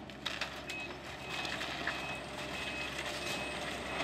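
Excavator demolishing a building: a steady engine hum under dense crunching and clattering of debris, with sharp cracks. A short high tone repeats at intervals of about half a second throughout.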